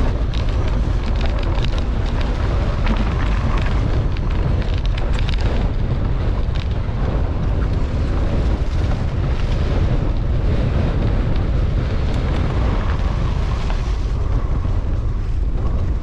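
Wind buffeting the camera microphone of a mountain bike riding fast down a rough dirt track, with a steady low roar. Tyre noise and many small clicks and rattles from the bike on the uneven ground run through it.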